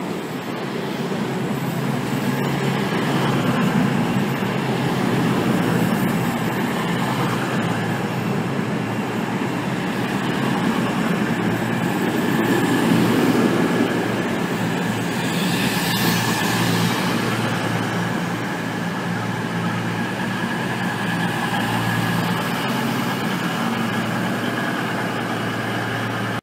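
CrossCountry Voyager diesel multiple unit running alongside the platform, its underfloor diesel engines giving a steady hum with a high whine over it. A short swell of hiss comes about two-thirds of the way through.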